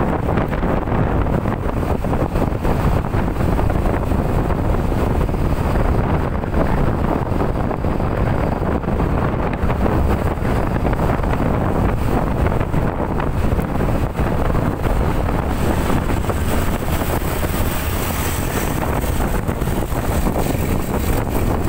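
Strong storm wind buffeting the microphone, a loud, dense, steady noise, in heavy rain. A brighter hiss comes in about three-quarters of the way through.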